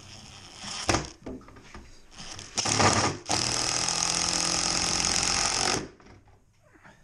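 Cordless impact driver driving screws through a steel hinge into timber: a brief burst about a second in, another short one near the middle, then a longer steady run of about two and a half seconds that stops abruptly.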